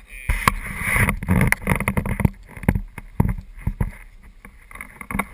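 Water splashing as a landing net holding a bream is lifted out of the water into an aluminium-style boat, followed by a run of sharp, irregular knocks as the net and the flapping fish bump against the boat.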